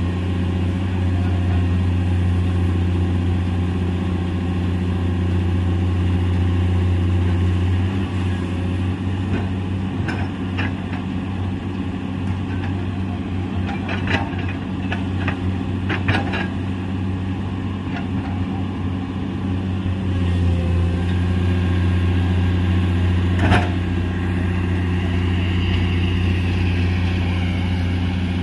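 Diesel engines of Komatsu hydraulic excavators running with a steady low drone, easing off about eight seconds in and picking up again around twenty seconds. A few sharp knocks come through in the middle and once more near the end.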